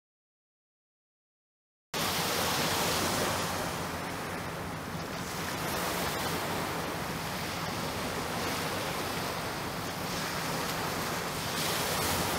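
Small waves breaking and washing on a shingle beach: a steady rush that slowly swells and eases. It starts after about two seconds of dead silence.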